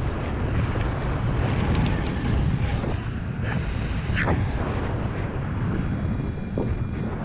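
Wind rushing over the camera microphone in a paraglider's flight, a steady low rumble of airflow, with a couple of brief scratchy sounds near the middle.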